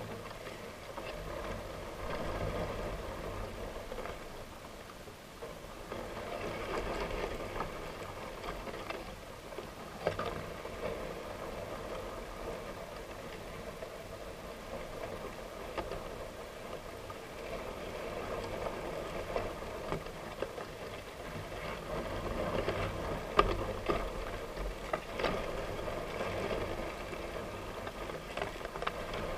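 Faint steady hiss with soft rustles and a few light clicks, picked up by the microphone of a camera riding on a high-altitude balloon payload as the box and its streamers sway in the thin air.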